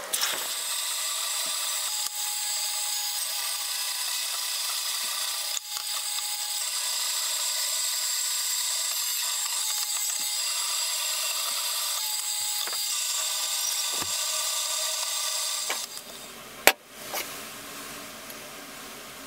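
Band saw cutting through a cast-aluminum hatchet handle: a steady, loud sawing noise with a few brief changes, stopping about 16 seconds in. A single sharp knock follows about a second later.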